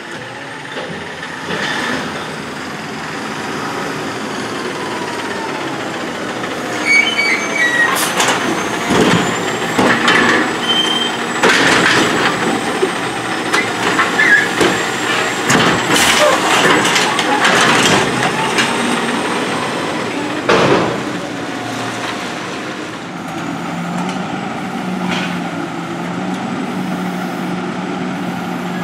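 Side-loading garbage truck with an automated gripper arm (Heil Durapack 7000 body): the diesel engine runs and the hydraulics whine as the truck pulls up. From about a third of the way in, a run of loud clanks and bangs comes as the arm lifts and shakes out a curbside cart over the hopper and sets it down. Near the end the engine runs steadily as the truck moves on.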